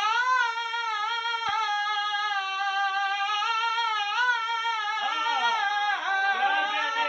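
A man's high voice singing a naat unaccompanied in classical style. He holds one long, slightly wavering high note for about five seconds, then moves into quicker rising-and-falling ornaments near the end.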